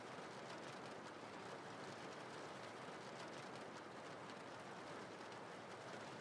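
Faint, steady rain: an even hiss of rainfall with no breaks.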